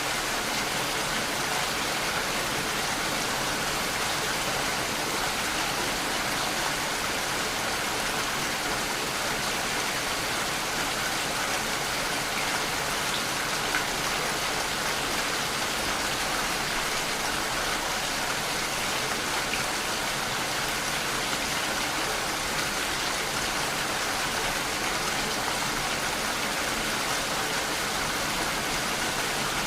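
Steady rain falling, an even patter of raindrops hitting a surface.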